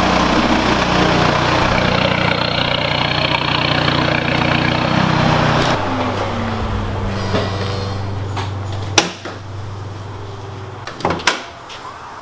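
Volkswagen Jetta's engine running as the car is moved in, loud at first, then settling to a quieter steady hum about six seconds in. The hum stops about nine seconds in with a sharp click. A couple of sharp knocks follow near the end.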